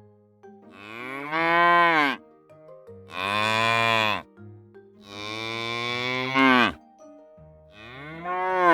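Domestic cow mooing: four long moos, each one bending down in pitch at its end, the last still sounding at the end.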